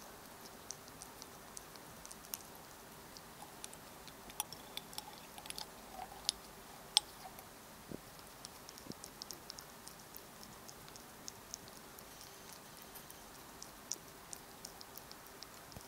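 A ferret licking strawberry pudding off a plastic spoon: faint, irregular little wet clicks and smacks of tongue and teeth, with one sharper click about seven seconds in.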